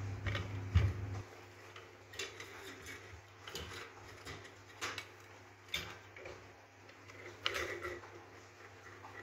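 Scattered metal clicks and knocks of a hand-operated grease pump being taken apart: its pump tube and coil spring drawn out through the lid. A low hum stops about a second in.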